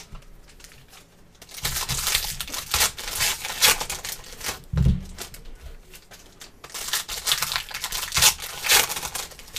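Foil wrappers of trading-card packs being torn open and crinkled by hand, in two spells of tearing and rustling, with a thump about five seconds in.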